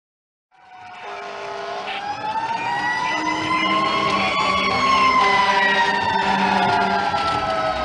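Fire engine siren wailing, starting about half a second in, rising slowly in pitch and then falling slowly.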